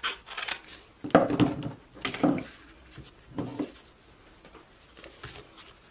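Paper sticker sheets being handled and slid across a wooden tabletop: three short rustles about a second apart, the first the loudest, then fainter handling.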